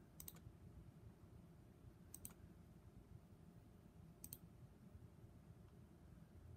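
Three faint double clicks, about two seconds apart, from clicking on a laptop while working through the Windows Start menu, over a low room hum.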